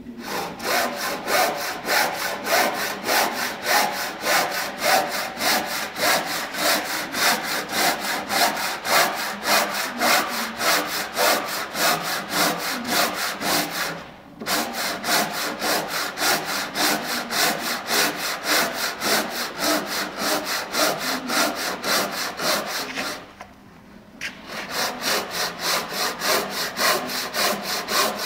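Japanese handsaw made for green oak cutting through a redwood beam by hand, in quick, even strokes. The sawing pauses briefly twice, about 14 seconds in and again about 23 seconds in.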